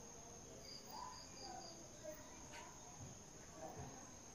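Faint outdoor insect ambience: a steady high insect trill, with a short run of about five quick high chirps in the first half.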